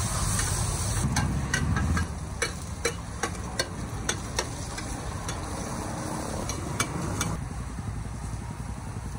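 Metal spatula and ladle scraping and clinking against a large shallow pan as food sizzles, with sharp clicks and taps from about a second in until about seven seconds. A steady low rumble runs underneath, louder in the first two seconds.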